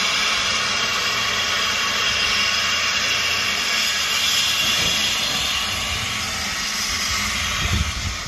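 Small saddle-tank steam locomotive letting off steam in a loud, steady hiss. A few low thumps come near the end.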